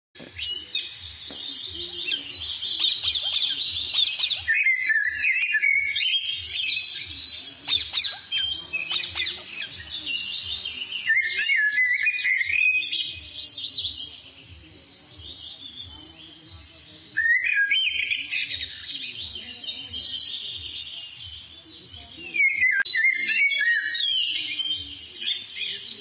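Green parakeets calling from a tree, in about five bouts of rapid high-pitched calls with a quieter pause a little past the middle.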